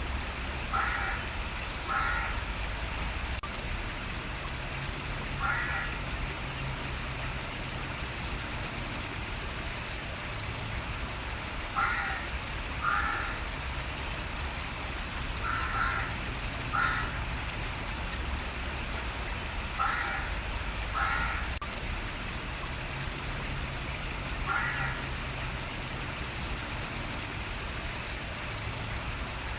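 A crow cawing, short harsh caws mostly in pairs about a second apart, repeated every few seconds over a steady hiss of running water.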